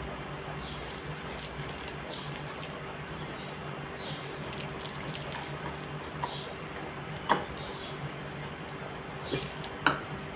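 Wire whisk stirring a wet egg batter in a glass bowl: soft, wet swishing strokes, with two sharp clinks of metal on glass, about seven and ten seconds in, over a steady low hum.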